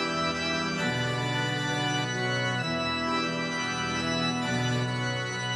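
Instrumental intro of a pop song: sustained organ-toned keyboard chords, changing about every two seconds, before any vocals come in.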